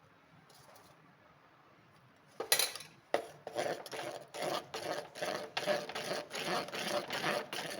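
A ladle scraping and stirring a thick dough of rice flour and jaggery syrup in a heavy-bottomed pot. The rhythmic strokes come about two or three a second and start a couple of seconds in.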